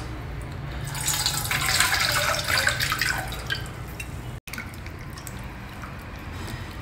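Hands squeezing soaked tamarind in a bowl of water to extract the pulp: wet squishing and dripping, loudest in the first half, breaking off about four seconds in and going on more quietly.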